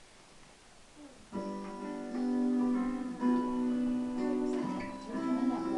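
Strummed acoustic guitar chords, starting about a second and a half in after a nearly quiet start.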